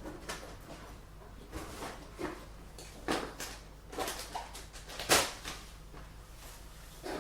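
Dishes being washed: scattered clinks and knocks of crockery and utensils, about seven in all, with the loudest clatter about five seconds in, over a faint steady hum.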